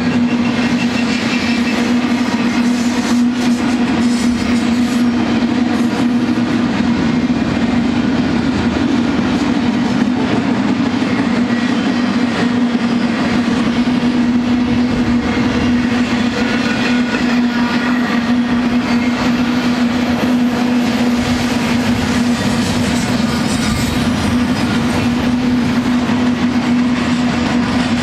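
Double-stack intermodal freight train's loaded well cars rolling past: a loud, steady rumble and rattle of steel wheels on the rail, with a constant hum running underneath.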